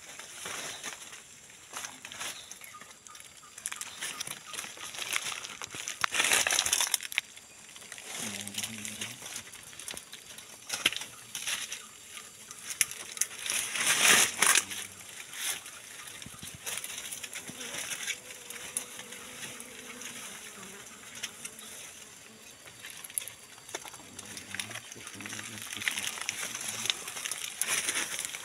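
Dry leaves and twigs rustling and crackling as someone moves through forest undergrowth and leaf litter, with two louder brushing bursts about six and fourteen seconds in. A steady high-pitched whine runs in the background.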